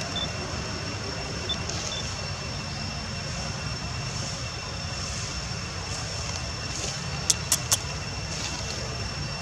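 Steady outdoor background noise: a low rumble with a faint steady high whine over it. Three quick clicks come close together about three-quarters of the way through.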